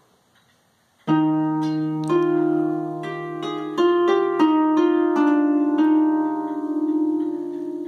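Floor-standing wooden harp being plucked. After about a second of quiet, a low note and chord sound together and ring on under a melody of single plucked notes, with the strings left to ring.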